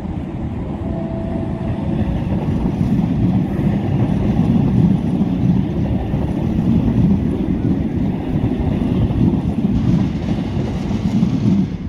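A Northern multiple-unit passenger train running past along the platform, a steady rumble that builds as it nears and begins to drop away as it clears near the end.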